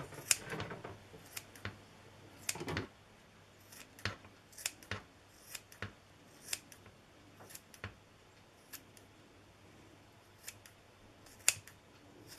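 Scissors snipping chicken stomachs into strips: a run of short, crisp cuts at an irregular pace, some in quick pairs and others a second or so apart.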